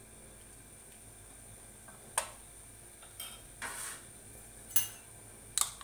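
Spoon knocking and scraping against the inside of a cooking pot while stirring soup: five separate clinks and scrapes starting about two seconds in, the sharpest one first.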